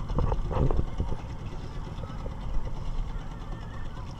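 A low steady rumble with water splashing in the first second.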